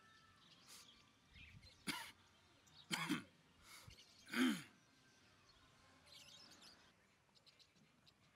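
A person clearing their throat and coughing: three short, harsh bursts about a second apart. The last is the loudest and drops in pitch at its end.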